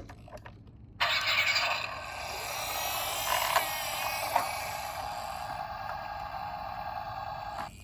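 A steady, thin vehicle sound effect, with no bass, cuts in suddenly about a second in and cuts off just before the end. A few faint clicks sound over it.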